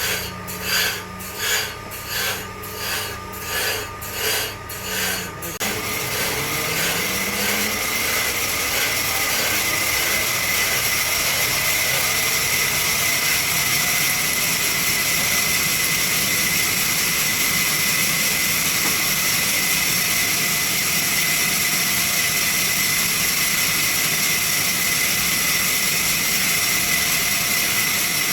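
Rhythmic rasping strokes, about one and a half a second, stop about five seconds in. The sawmill's saw machine then starts, its pitch rising as it spins up, and runs steadily with a whine.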